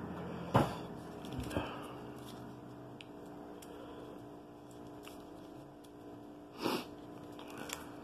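Quiet handling of a small paper-wrapped chocolate square: a few soft taps and rustles, the loudest a short rustle about two-thirds of the way through, over a steady hum.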